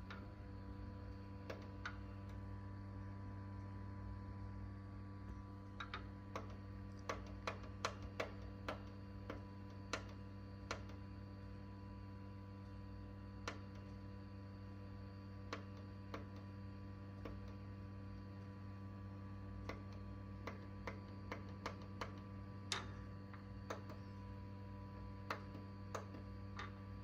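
Clicks of a Dell CRT monitor's front-panel menu buttons, pressed many times in irregular runs, over a steady electrical hum.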